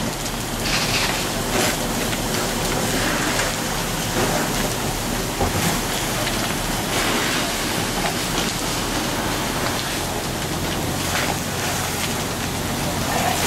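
Large debris fire burning under firefighters' hose streams: a steady rushing hiss of water spray and flames, with scattered crackles and pops, over a low steady hum.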